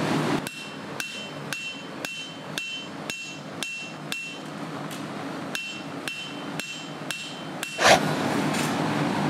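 Hand hammer forging a hot 80CrV2 steel chef's knife blank on an anvil, about two even blows a second, each with a short metallic ring. The blows pause briefly once. Near the end comes one loud clank, then the steady roar of the forge.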